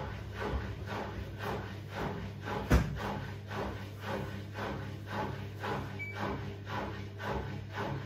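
Front-loading washing machine on its wash cycle: a steady motor hum with water and laundry sloshing in the turning drum in regular swishes about twice a second. One louder knock comes a little under three seconds in.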